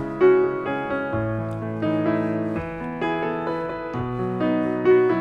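Background music: a solo piano piece, a steady flow of notes.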